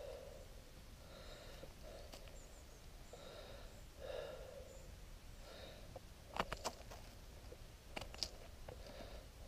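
Faint, regular breathing through the nose close to the microphone. Sharp little clicks and snaps come in two clusters, about six and a half and eight seconds in, as a knife trims the base of a freshly picked bolete's stem.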